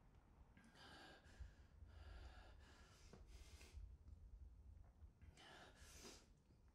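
Faint breathing: about six audible breaths and sighs, each under a second, over a low steady rumble of room tone.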